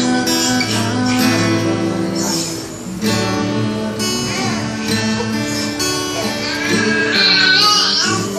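Steel-string acoustic guitar strummed in chords, with a brief dip in loudness just before three seconds in.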